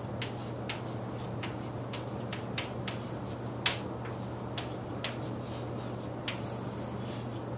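Chalk tapping and scratching on a chalkboard as words are written: irregular sharp taps, one louder about three and a half seconds in, over a steady low hum.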